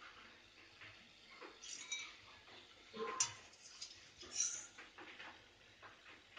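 Freshly deep-fried, crispy green peas rattling and clicking against a glass bowl as they are moved, with a sharper ringing clink on the glass about three seconds in.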